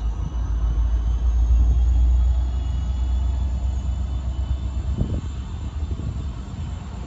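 Deep low rumble of an approaching Union Pacific diesel freight locomotive, loudest about two seconds in.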